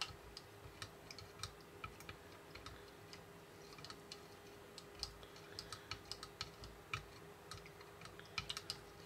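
Small plastic stirrer clicking and tapping against the clear plastic fryer tank of a Bandai Konapun toy kitchen set while stirring a powder-and-water mix: irregular light clicks, a little denser near the end, over a faint steady hum.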